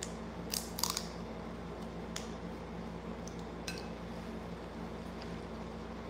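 Sharp clicks and cracks of a screw cap being twisted off a bottle of orange juice, loudest in a quick cluster about half a second to a second in, followed by a few fainter clicks of handling the bottle.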